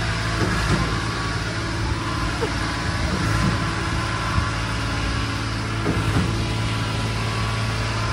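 Steady low engine hum of road traffic, unchanging throughout.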